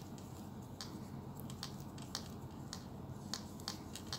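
Metal crochet hook working yarn, giving faint, irregular little clicks and ticks as it catches and pulls loops through.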